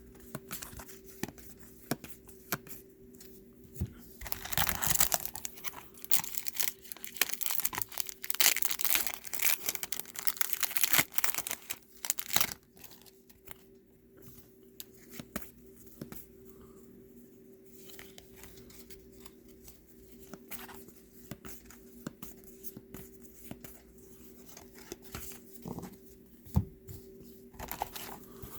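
Trading-card pack wrapper being torn open and crinkled, loudest over several seconds in the first half, followed by softer rustling and light clicks as the cards are handled.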